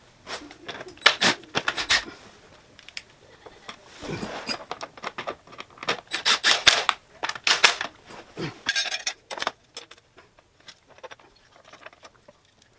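Irregular clicks, clinks and rattles of metal hardware and hand tools being handled as parts are refitted to the side of a motorcycle, coming in several clusters, with a short denser rattle about nine seconds in.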